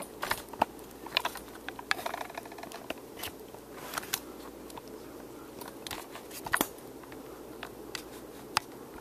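Handling noise: scattered clicks, taps and rustles as a hand-held camera and a replica championship belt are moved about, with a couple of sharper knocks in the second half.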